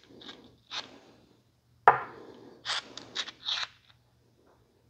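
AR-15 buffer being worked by hand: a sharp click just under two seconds in, then several short scraping and rubbing sounds of its parts.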